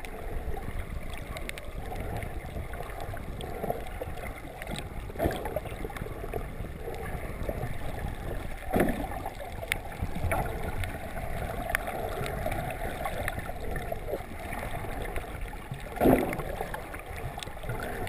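Muffled underwater sound of shallow water moving around a camera held just below the surface: a steady low rumble with a few brief louder swishes, around five, nine and sixteen seconds in.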